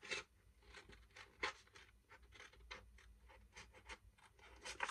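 Scissors cutting along the edge of a sheet of paper: a few faint, scattered snips.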